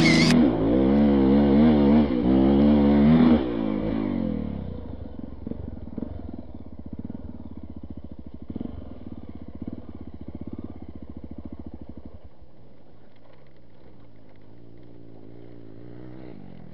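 Honda XR 250 Tornado's single-cylinder four-stroke engine revving up and down under load for about three and a half seconds. The throttle then shuts and the engine drops to a much quieter, even low run that fades further near the end.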